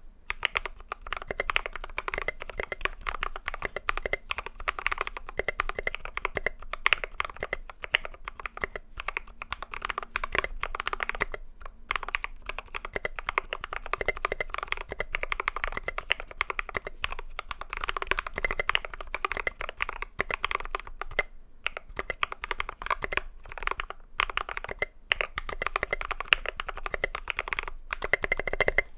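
Continuous fast typing on a custom mechanical keyboard, an IDobao ID80 built with lubed Holy Panda tactile switches fitted with switch films and SA-profile MaxKey keycaps. A dense stream of keystroke clacks runs with a few short pauses.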